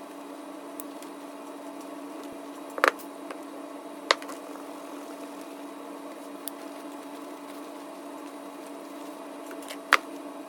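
A few sharp clicks and knocks as a pocket knife is handled during cleaning: a double click about three seconds in, another a second later, and one near the end, over a steady low hum.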